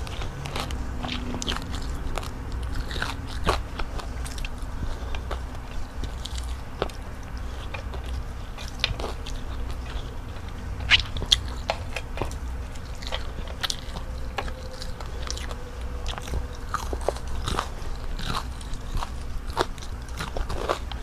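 Close-up crunching and chewing of crispy breaded fried calamari rings, with many sharp crackling bites, the loudest pair about halfway through.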